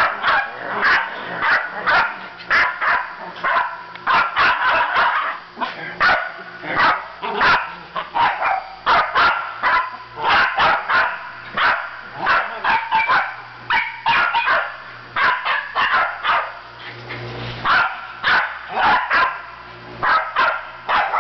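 Small puppy barking over and over in short, high yaps, about two a second.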